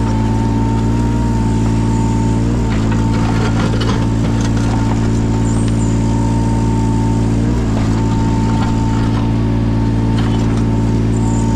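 Yanmar 017 mini excavator's diesel engine running steadily with a steady high whine. Its pitch dips briefly twice, about two and a half and seven and a half seconds in, and there is intermittent clatter in between.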